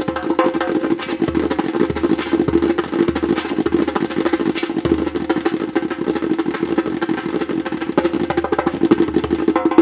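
Djembe played with bare hands: a fast, unbroken run of strikes on the skin head.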